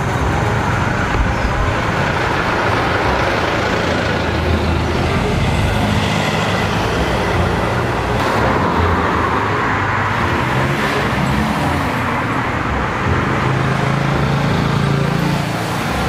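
Steady road traffic noise, the rumble of passing cars and engines.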